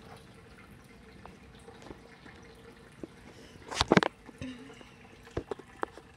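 Heavy rain as a steady hiss, with scattered sharp drips and a burst of louder knocks about four seconds in.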